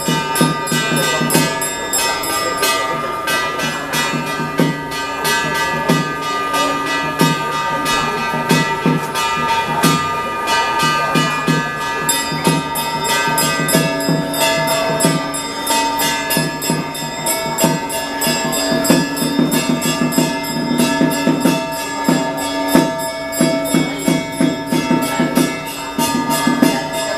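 Traditional Taiwanese temple festival music: fast, steady clashing of metal percussion such as cymbals and gongs, over several sustained ringing tones.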